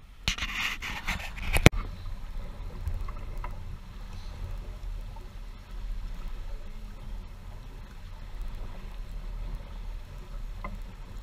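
J-35 sailboat's hull rushing through choppy water under sail, heard as a steady wash over a low wind rumble on the microphone. In the first two seconds a loud noisy burst ends in a sharp knock.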